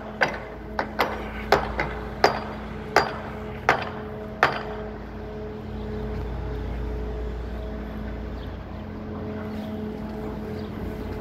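Hammer blows on a building site: about nine sharp strikes at an uneven pace of one or two a second, stopping about four and a half seconds in. A steady low machine hum runs underneath throughout.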